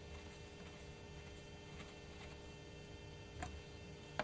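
Small hand screwdriver turning a screw into a Titanium PowerBook's metal base plate: faint, scattered ticks, with a louder click about three and a half seconds in and a sharp click near the end.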